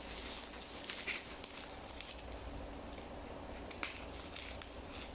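Bubble wrap crinkling and crackling faintly as it is handled and slit open with a utility knife, with scattered small clicks and one sharper click a little before the end.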